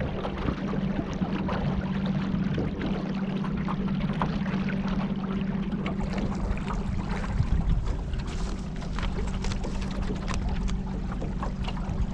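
Small boat on the river: a steady low motor hum with water splashing and lapping against the hull, the splashing busier in the second half.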